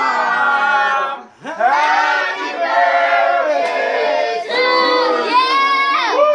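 Several voices singing loudly together in long, sliding held notes, with a short break about a second in.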